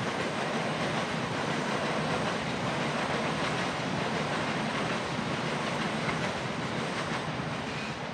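Steady rushing background noise with no distinct events, easing slightly near the end.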